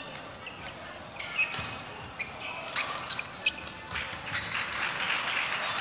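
Badminton rally: about five sharp cracks of rackets striking the shuttlecock, between one and three and a half seconds in, in a large echoing sports hall.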